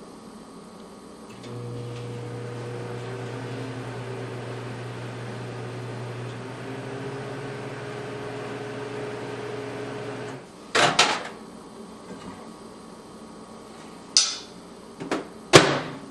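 Microwave oven running with a steady electrical hum for about nine seconds, then cutting off. A few sharp clacks and knocks follow.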